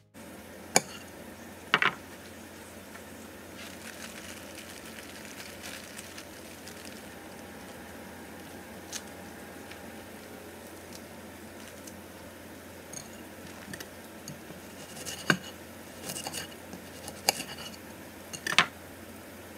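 Hands handling food at a kitchen counter: a plastic bag rustling and scattered light clicks and taps against a plate, a few near the start and a cluster near the end, over a steady low hum.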